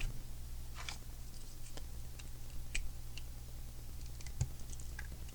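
Small plastic Lego pieces clicking and rattling as they are handled and fitted, a scattering of light sharp clicks with a brief rustle about a second in, over a steady low hum.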